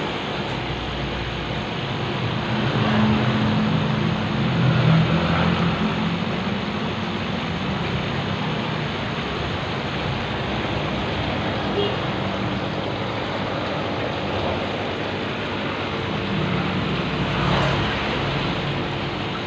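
Steady rushing hiss of an aquarium's aeration and water flow: air bubbles streaming up through the tank.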